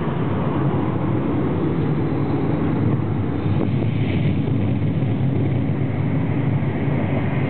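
Recorded F-14 Tomcat jet takeoff with afterburner, played over an outdoor loudspeaker: loud, steady jet engine noise heavy in the low end.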